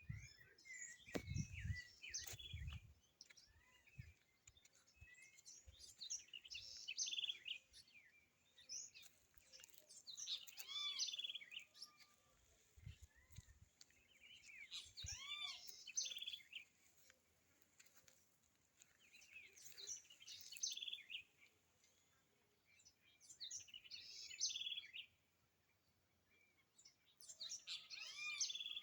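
A songbird singing, repeating a short phrase of high, arching whistled notes every four to five seconds. A few low thumps come in the first few seconds and again about halfway.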